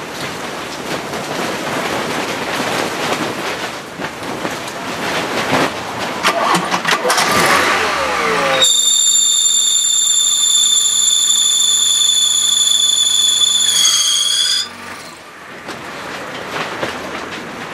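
Car engine running with its alternator drive belt squealing: a loud, steady, high-pitched squeal lasting about six seconds that sags in pitch and then stops. The belt has sunk too deep into the worn alternator pulley groove, so it squeals even though it is properly tensioned.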